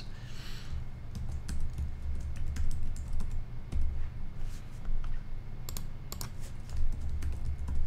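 Computer keyboard being typed on, irregular key clicks as a password is entered, over a low hum.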